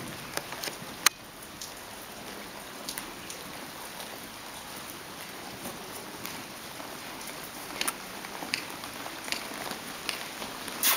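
Steady rain-like hiss with a few scattered sharp clicks, the loudest about a second in and just before the end.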